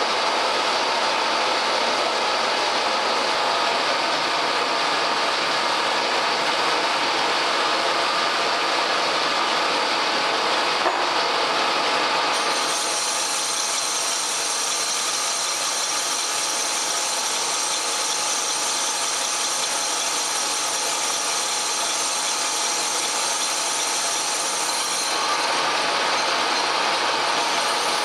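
Pacemaker lathe running steadily while a carbide tool turns down the diameter of a titanium brake bell. A high thin whine joins the machine noise about halfway through.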